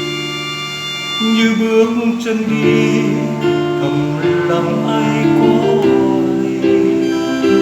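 Instrumental music from a song's introduction: guitar playing over sustained chords, with a livelier melody coming in about a second in.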